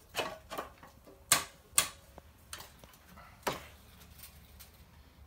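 Sharp metallic clicks and knocks as a stainless steel plate is handled and fitted onto a painted wooden board on a steel dolly frame: about half a dozen knocks, the loudest two in quick succession under two seconds in, then only faint ticks.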